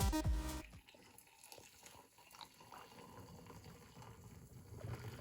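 Electronic music with a beat cuts off under a second in. It is followed by quiet with a few faint, scattered small clicks.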